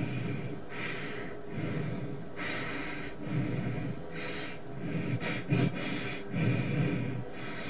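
Exaggerated heavy breathing: loud in-and-out breaths one after another, alternating between hissy breaths and lower, rougher ones, roughly one every second.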